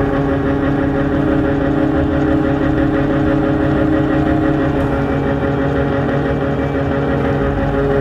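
Combine harvester running steadily while its grain tank is being emptied by the augers: a constant machine hum with several held whining tones, one shifting slightly near the end.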